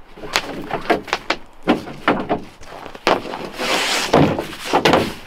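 A ratchet strap being pulled off a stack of wooden panels in a pickup truck bed: a run of sharp knocks and clatters, then a longer scraping, rubbing noise about three and a half seconds in as the strap slides across the boards.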